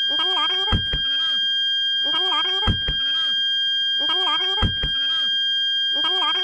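Toyota Calya/Sigra parking sensor sounding one unbroken high tone, the continuous warning that an obstacle is very close. About every two seconds a pair of short knocks and a brief wavering voice-like sound repeat over it.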